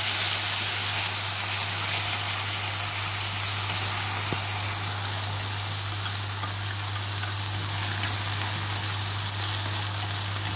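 Fried tofu skin sizzling in a soy sauce and sugar glaze in a nonstick pan while it is stirred, with a few light clicks in the second half. A steady low hum runs underneath.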